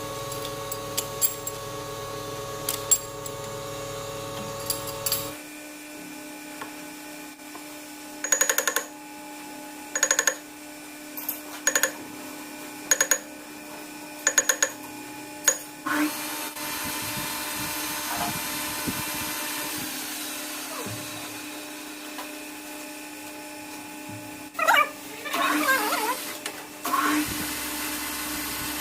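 Metal lathe running with a steady hum that changes abruptly about five seconds in. It is followed by a run of six short, loud bursts about one and a half seconds apart, a stretch of hissing, and a few more loud bursts near the end.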